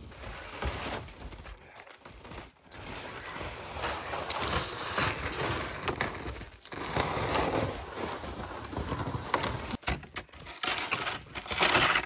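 Crunching and scraping in snow: footsteps and a loaded plastic sled dragged over the snow, uneven and rising and falling in loudness, with a few sharp clicks.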